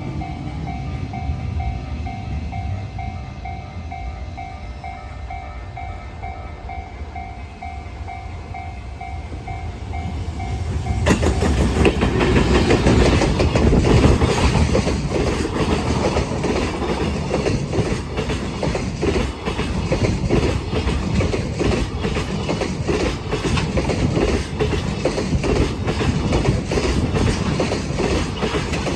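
Level-crossing alarm bell ringing in a steady repeating pattern over a low rumble. About eleven seconds in, the bell stops and the loud clatter of a freight train's wheels hammering over rail joints takes over, a rapid run of clacks that lasts to the end.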